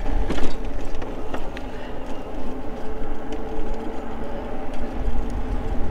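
Riding noise from an Eahora Juliet e-bike: low wind rumble and tyre hiss on the pavement, with a steady electric motor whine. A few rattling knocks come over bumps, the loudest about half a second in, from the rear rack knocking against the metal basket.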